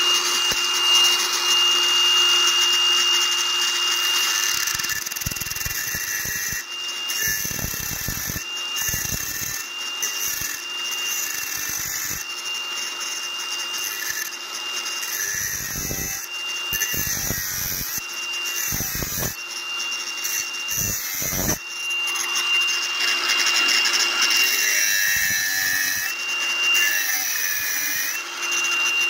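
Angle grinder with a thin cutting disc running at a steady high whine while it cuts through the steel tube of a VW Beetle front axle beam, with a harsh grinding rasp from the disc biting the metal. The pitch sags briefly under load a few seconds before the end.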